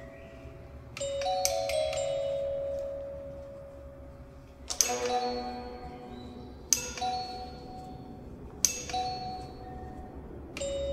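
Yangqin (Chinese hammered dulcimer) struck by a robot's solenoid-driven bamboo hammers: bright metallic notes that ring on and fade. A quick cluster of strikes comes about a second and a half in, then single notes roughly every two seconds.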